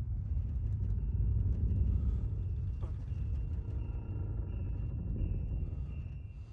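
Deep, steady low rumble, loudest a second or two in and easing slightly toward the end, with faint thin high tones and short beeps above it.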